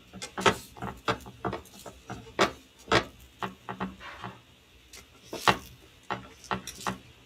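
Slotted spatula scraping and knocking against a frying pan in irregular strokes, loosening the egg so it doesn't stick.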